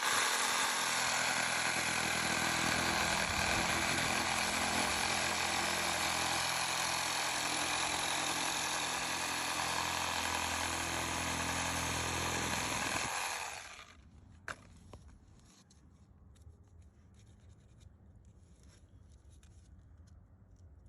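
An engine running steadily at a constant speed, then cutting off about thirteen seconds in.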